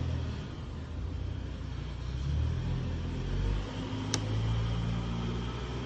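Low, steady engine-like rumble of a vehicle, with one sharp click about four seconds in.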